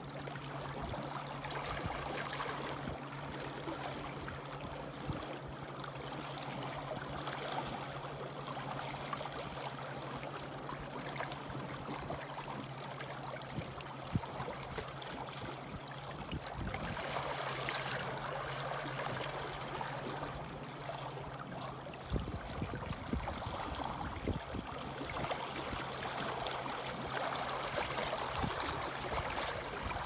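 Small waves lapping and splashing against shoreline rocks, swelling and easing every several seconds. A low steady hum sits underneath and stops about two-thirds of the way through.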